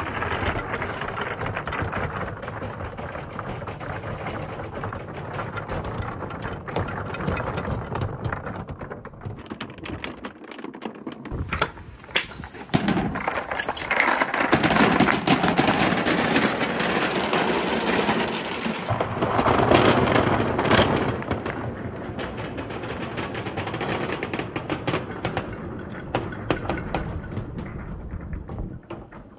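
Many hard balls, colourful balls and clear crystal glass balls, rolling and knocking down a long perforated wooden board, a dense rattling clatter of small knocks. It grows louder in the middle, then thins out to a few balls near the end.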